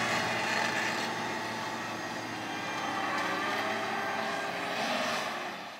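John Deere tracked tractor's engine running steadily under load as it pulls a disc cultivator through dry soil, fading out near the end.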